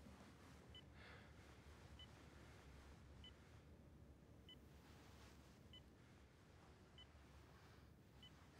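Bedside patient monitor giving faint, short, evenly spaced beeps, about one every second and a quarter, over quiet room hiss.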